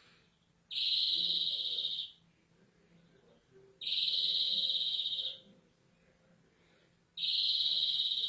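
European greenfinch singing three long, even, high drawn-out notes about three seconds apart, each lasting well over a second. The song is presented as an example of bad greenfinch song.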